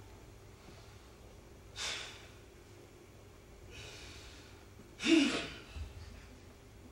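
A man's audible breaths in silence: a sharp breath about two seconds in, a faint one around four seconds, and a louder gasp with a little voice in it about five seconds in.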